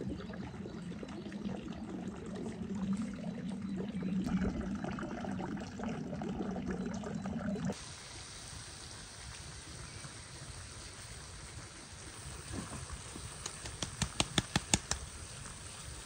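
Liquid pouring for about eight seconds until an abrupt cut. A quieter hiss follows, with a quick run of sharp clicks near the end.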